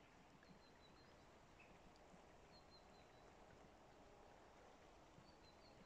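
Near silence: a faint outdoor hush with three brief, faint high chirps from small birds.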